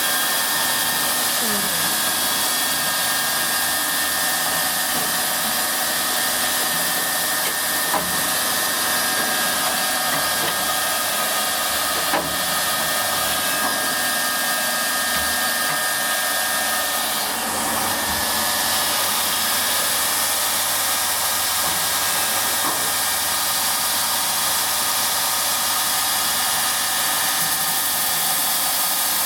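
CNC belt polishing machine running, its abrasive belt polishing a saw blade: a steady hissing noise with faint steady tones running through it, and two short knocks about eight and twelve seconds in.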